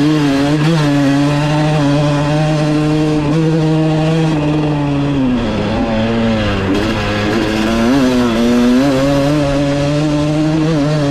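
Kawasaki KX250 single-cylinder two-stroke engine running at fairly high, steady revs, with small rises in pitch and a brief drop about five and a half seconds in.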